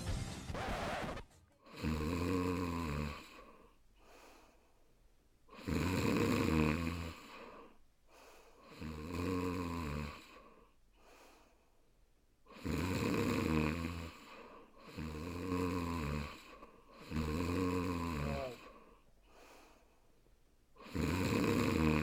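A person snoring: seven long, buzzing snores, each about a second long and a few seconds apart, with quiet breaths between. A little music trails off about a second in.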